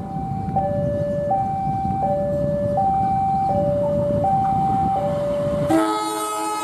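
A two-tone warning alarm, a high and a low tone alternating about every 0.7 s, typical of a railway level-crossing alarm, over the low rumble of an approaching diesel locomotive. Near the end the locomotive's multi-note horn starts a loud, steady chord.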